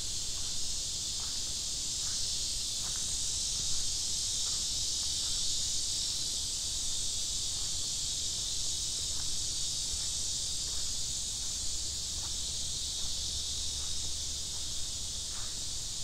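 Steady, dense chorus of buzzing insects in high summer, unbroken throughout, with faint footsteps on a path ticking at about walking pace.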